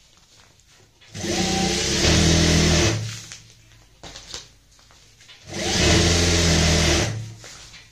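Industrial sewing machine stitching through layered fabric in two runs of about two seconds each. The motor speeds up at the start of each run, then holds a steady whir.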